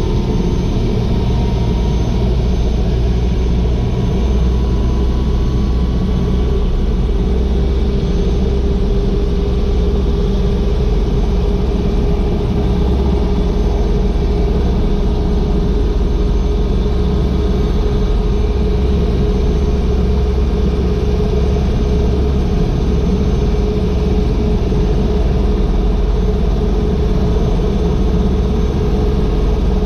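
Agusta AW119 helicopter's single turboshaft engine and rotor running steadily at low power on the ground, heard inside the open-door cockpit: a loud low rumble with a hum that creeps slowly upward in pitch.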